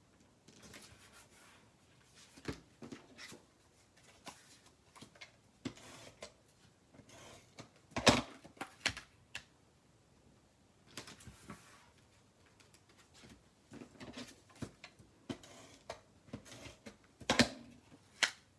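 Paper and craft tools handled on a work table while paper squares are glued onto a journal: scattered rustles, light taps and clicks, with a sharp knock about eight seconds in and another near the end.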